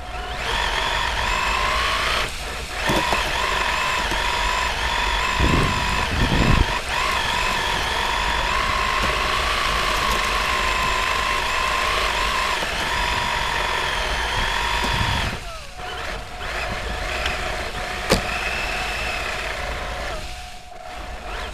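Motor of a radio-controlled car whining steadily at a high, even pitch as it drives over ice, with a couple of low thumps about six seconds in. The whine drops away about fifteen seconds in, leaving a lower steady tone and a single sharp click.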